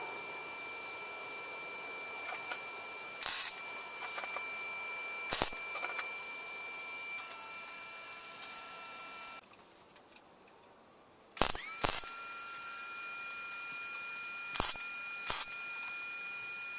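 About six short MIG tack welds, each a burst of a fraction of a second, over a steady high-pitched whine; the whine and background drop out for about two seconds in the middle.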